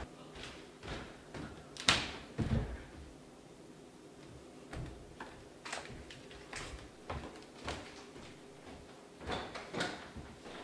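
Knocks and clunks of someone moving about a kitchen. A sharp knock comes about two seconds in, a duller thud just after, then scattered light clicks of things being handled on the counter.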